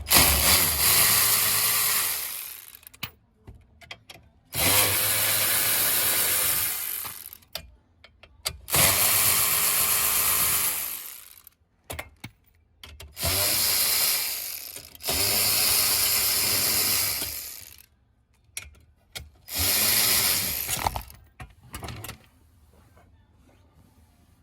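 Cordless power drill-driver running in about six short bursts of two to three seconds on the screws of the steering column covers. Each burst spins up and winds down, with brief pauses between.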